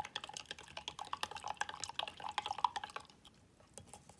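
A plastic spoon stirring tea in a glass mason-jar mug: quick, rapid clinks and liquid swirling that stop about three seconds in.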